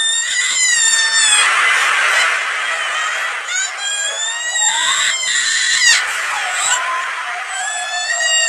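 A cartoon character crying: high-pitched wailing cries that waver in pitch and break off into new wails every second or so, altered by an audio effect.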